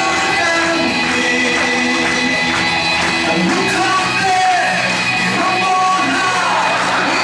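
Several young men singing together into handheld microphones over amplified backing music.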